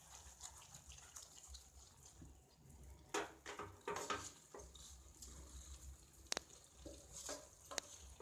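Soaked rice and chicken being stirred gently in a cooking pot with a metal spatula: faint scrapes and a few light clicks of the spatula against the pot, irregular and soft.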